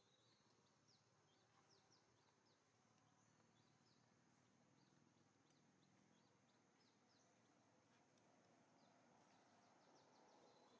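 Near silence: faint outdoor background hiss with scattered brief, high chirps throughout.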